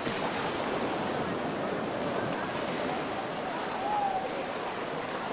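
Indistinct voices of people talking over a steady rushing background noise, with one brief pitched call about four seconds in.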